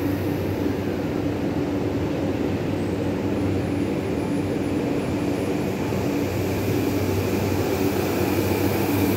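JR East E235-1000 series electric train pulling out and gathering speed past the platform: a steady running rumble of wheels on rail with the traction motors' hum, growing slightly brighter near the end.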